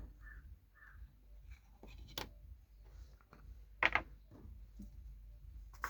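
Faint scattered clicks and taps of small repair tools being handled on a workbench, with two sharper ticks about two and four seconds in, over a low steady hum.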